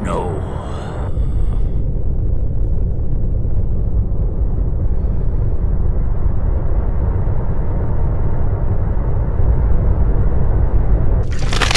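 Deep, steady rumbling drone, a horror sound effect, growing louder after about a second. Near the end a burst of several sharp, loud crashing impacts breaks in.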